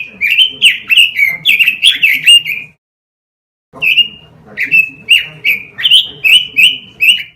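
Pekin robin (red-billed leiothrix) singing loudly: two phrases of quick whistled notes, each note dropping in pitch, with a pause of about a second between them.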